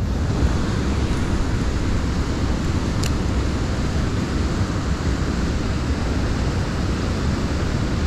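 Steady rush of water pouring down a stepped concrete spillway, with a low, fluttering wind rumble on the microphone.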